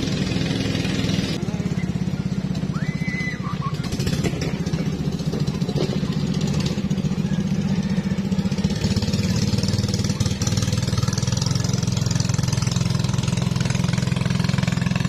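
A small engine running steadily at an even pace, with a fine rapid pulsing throughout.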